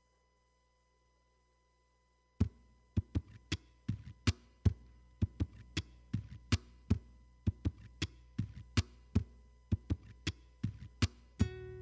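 A steady rhythm of sharp percussive knocks with a deep thud in each, about two to three a second, starting after a couple of seconds of near silence, over a low electrical hum. A held musical note comes in near the end.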